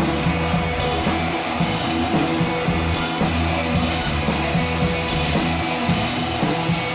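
Background music with drums and guitar over a steady beat, with a cymbal-like crash about every two seconds.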